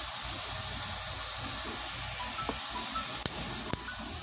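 Steady hiss of background noise, with a few faint short tones and two sharp clicks about half a second apart near the end.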